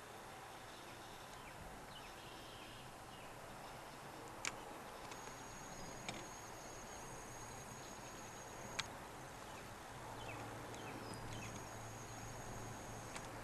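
Quiet open-field ambience: a steady hiss with faint distant bird calls and a thin, steady high tone that holds for a few seconds at a time. Three sharp clicks are spread across the middle, and a low hum comes in about ten seconds in.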